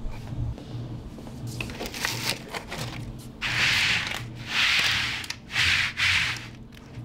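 Hands sweeping across a Schlüter TROBA-PLUS 8G studded plastic drainage mat to smooth it flat. Three loud rubbing swishes come in the second half, after lighter crackling rustles of the sheet.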